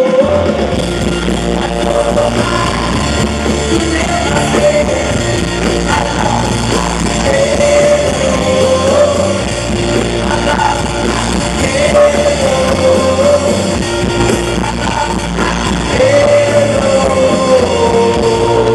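Live rock band playing: electric guitars, bass and drums under a male singer who holds long sung notes every few seconds. Heard from within the audience.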